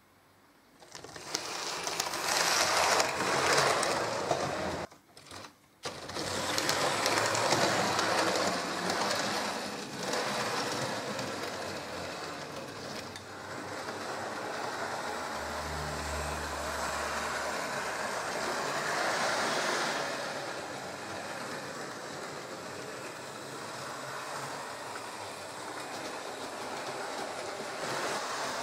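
H0-scale model trains running on a layout: small electric motors whirring and wheels rattling along the track in a steady noisy rumble, which cuts out briefly about five seconds in. A low hum joins for a couple of seconds near the middle.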